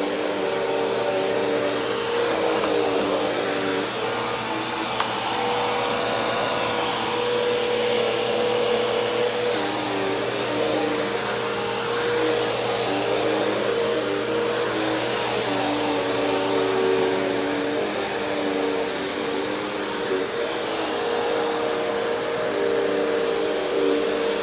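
Vacuum cleaner running steadily, its motor whine wavering slightly in pitch as the nozzle is pushed across the floor.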